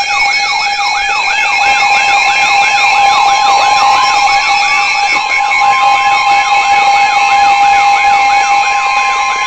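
Emergency alert tones: a siren-like pitch sweeping up and down about three times a second over a steady tone, with a second steady tone joining about four seconds in. They are the alert that precedes a civil emergency message on the weather radio.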